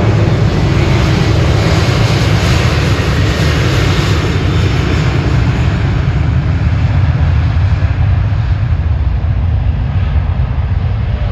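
Jet aircraft engines running loud as a plane passes close by, the hissing top of the sound fading away in the second half.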